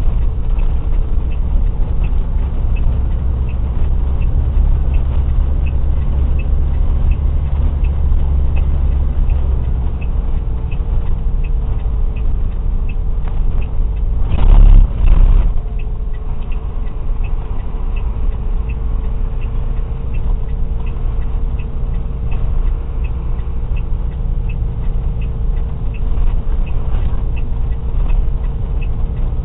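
Truck engine and tyres heard from inside the cab on a rough gravel road: a steady low hum and rumble with a faint whine, and a faint regular ticking a little more than once a second. About halfway through comes a brief loud jolt and rattle.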